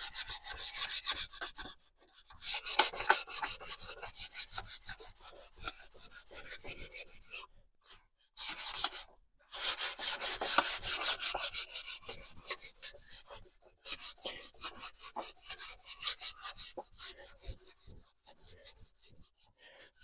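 Fine sandpaper rubbed by hand along the varnished wooden planking of a model ship hull, in quick back-and-forth strokes several a second with a few short pauses. It is a light rub-down that knocks off the wood fibres the varnish has raised.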